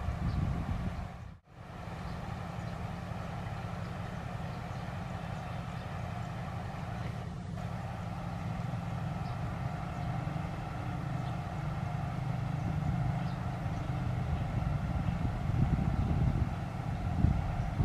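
Wind rumbling on the microphone over the distant rumble of an approaching passenger train, growing slowly louder toward the end. The sound drops out for a moment about a second and a half in.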